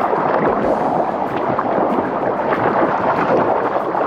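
Loud, steady rush of river water on a whitewater river, with wind buffeting the microphone.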